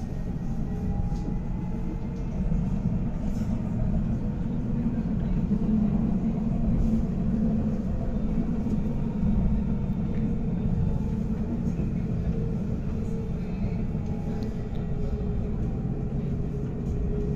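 Electric low-floor tram (Alstom Citadis) running along its track, heard from inside the passenger cabin: a steady low rumble with a faint whine that slowly shifts in pitch.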